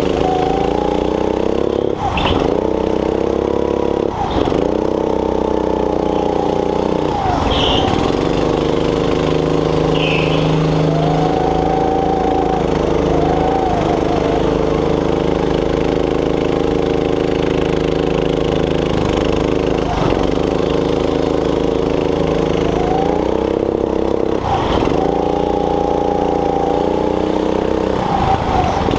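Go-kart engine running hard under the driver, its revs dropping sharply about six times as the throttle is lifted for corners and climbing again on the straights.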